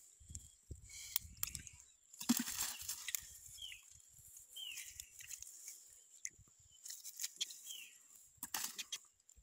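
A cast net and its catch of cari being handled on wet sand: crackly rustling in two stretches, about two seconds in and again near the end. Over it, a short high falling chirp comes several times from an animal.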